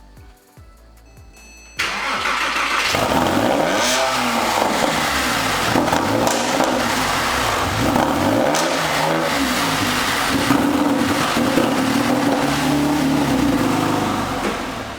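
Porsche 911 (997) flat-six engine running, revved twice with the pitch rising and falling, cutting in loudly about two seconds in.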